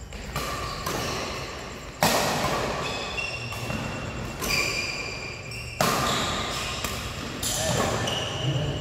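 Badminton rally: rackets striking the shuttlecock in a string of sharp hits about a second or two apart, the loudest about two and six seconds in, echoing in the hall. Short high squeaks of sneakers on the court floor come between the hits.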